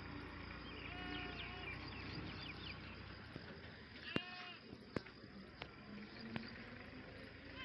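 Goats bleating a few short times, with several sharp clicks around the middle.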